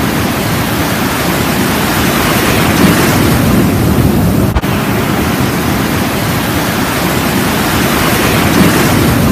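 Ocean surf breaking and washing up the beach: a loud, steady rush of waves and foam, with a brief drop about halfway through.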